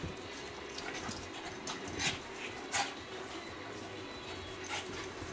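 Two small dogs play-fighting, with a few short, sharp dog cries about two seconds in, just before three seconds, and near the end.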